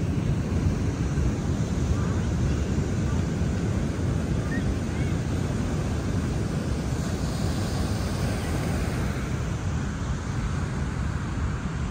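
Ocean surf breaking and washing on a sandy beach, heard as a steady rush, with wind buffeting the microphone.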